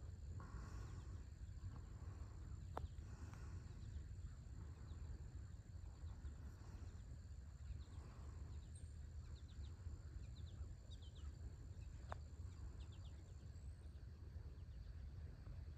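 Faint dawn farmland ambience: a steady low rumble under a thin, steady high insect drone, with scattered small bird chirps from about seven to twelve seconds in and two sharp clicks.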